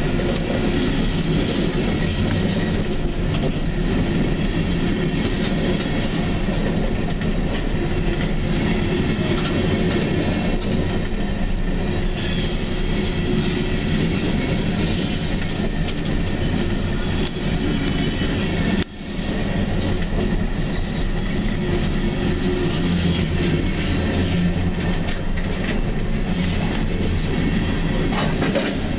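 Empty coal cars of a freight train rolling past close by on curved track: a steady, loud rumble and rattle of steel wheels on rail, with a clickety-clack over the rail joints. The sound drops out for an instant about two-thirds of the way through.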